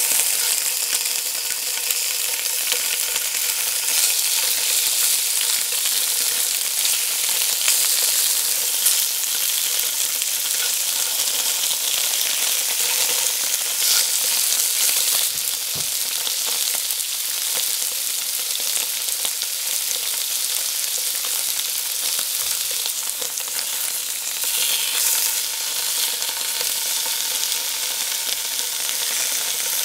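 Slices of firm tofu sizzling steadily as they pan-fry in hot oil in a steel wok.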